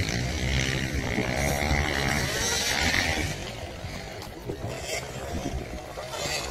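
Dirt bike engine revving, its pitch rising about a second and a half in, then quieter after about three seconds as it falls away.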